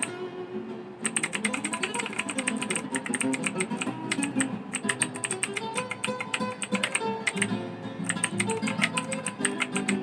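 Fast typing on a Rakk ILIS mechanical keyboard: a rapid run of key clicks, pausing briefly just after the start and again about three quarters of the way through. Background guitar music plays under it.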